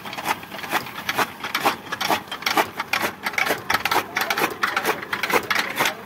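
Motor-driven chaff cutter running, its flywheel-mounted blades chopping green fodder and straw in a rapid, even series of sharp chops, several a second.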